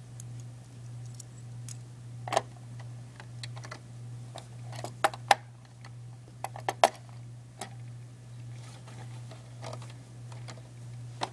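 Small plastic Lego pieces clicking and tapping as a minifigure and its accessory are handled and set down: scattered sharp clicks, a few louder ones in the middle, over a steady low hum.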